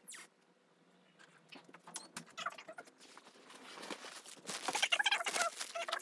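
Close handling noise of tripod packaging: rustling, crinkling and scattered clicks, with a louder burst of crinkly, squeaky rustling about two-thirds of the way through.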